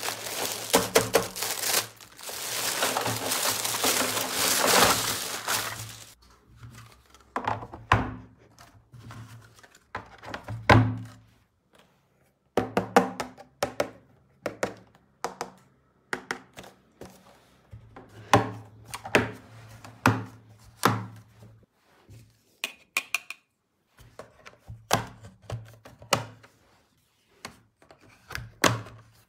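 Loud rustling noise for the first several seconds, then a long series of sharp knocks and taps at irregular spacing, coming in clusters.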